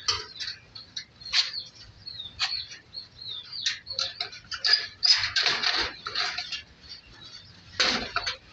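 Chicks peeping: many short, high chirps, most falling in pitch, repeating throughout. Louder bursts of rustling come about five seconds in and again near the end.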